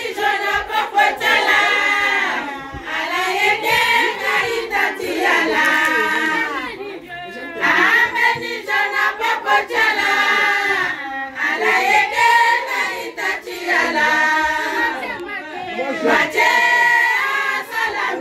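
A group of women singing together in a choir, in long sung phrases, with some hand clapping.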